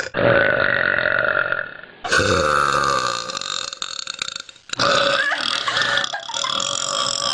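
Women burping: three long, drawn-out burps one after another, each about two seconds, with abrupt cuts between them where the recording quality changes.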